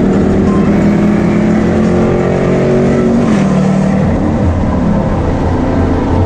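A vehicle engine running loudly under way, its pitch holding steady and then dropping about halfway through.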